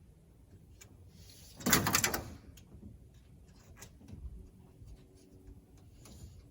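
Steel tape measure blade being pulled out, a quick ratcheting rattle lasting about half a second, followed by a few light clicks and taps.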